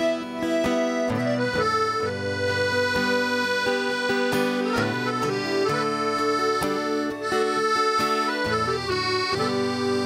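Piano accordion playing a melody in long held notes, backed by acoustic guitar: the instrumental introduction of a song, before the vocal enters.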